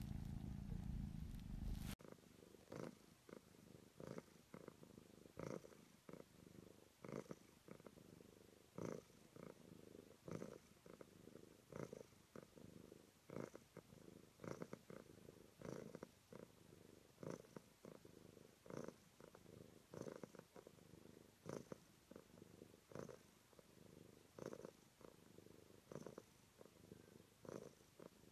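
Domestic cat purring softly, the purr swelling and fading in a steady rhythm about every second and a half. For the first two seconds a louder, deeper hum is heard, which cuts off abruptly.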